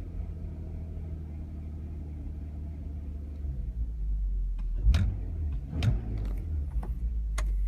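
Audi A3 3.2 V6 engine idling with a steady low rumble, an engine that has a misfire problem. In the second half come several sharp clicks and knocks.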